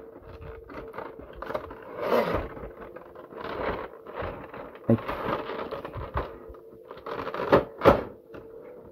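Clear plastic blister packaging crinkling and crackling as it is handled and pried loose, with a few sharp cracks, two of them close together near the end.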